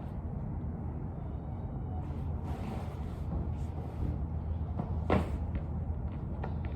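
Steady low background rumble, with a single knock about five seconds in.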